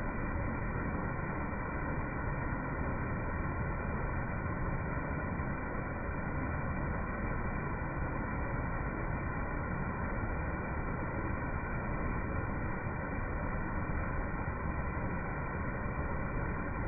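Steady, dull rumble of a waterfall's falling water, muffled, with none of the usual hiss.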